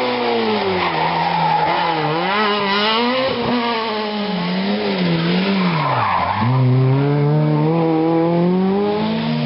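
Small rally car's engine revving hard up and down as it comes through a hairpin on a special stage. The pitch drops sharply about six seconds in as it brakes and shifts down, then holds high as it powers round the bend.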